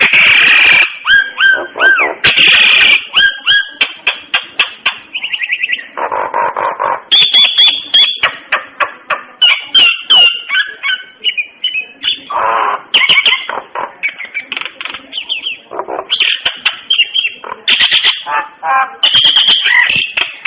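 Common myna singing: a varied, continuous string of rapid clicking trills, chatters, gurgles and short whistled notes.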